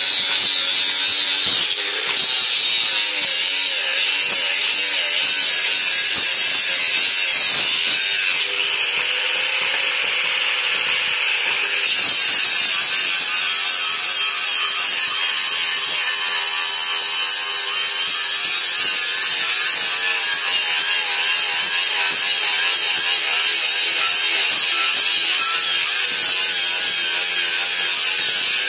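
Electric angle grinder grinding a steel khukuri blade: a steady, high-pitched grinding whine of the disc on the metal, running without a break.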